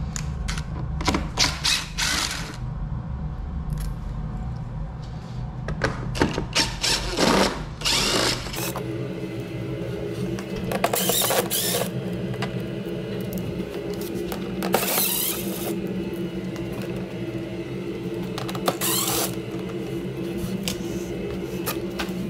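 Cordless impact driver running in several short bursts, backing out the T25 Torx screws that hold a snowmobile's hood panels.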